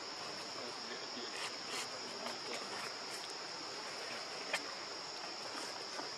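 Steady high-pitched drone of insects in the forest, with a few faint clicks and one sharper click about four and a half seconds in.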